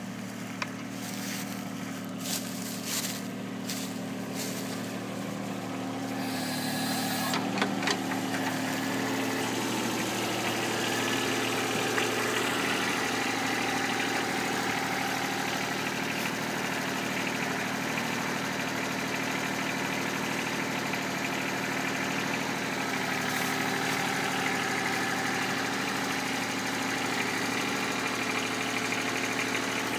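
Backhoe engine running steadily, growing louder about seven seconds in and staying up, with a few clicks and knocks in the first eight seconds.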